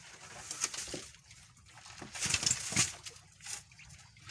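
Water splashing and sloshing at the side of a small fishing boat as a gill net is fed over the gunwale into the sea, in a few short bursts, the busiest about two seconds in.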